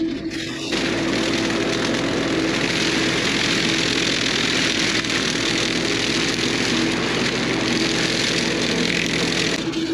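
Bobcat E42 mini excavator running steadily with an even whine. About a second in, a loud, broad rushing noise joins it and holds until just before the end.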